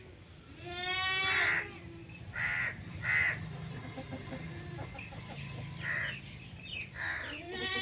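Farmyard animal calls: a goat bleats in a drawn-out call about a second in and again at the very end. Between the bleats come several short bird calls, like caws or clucks.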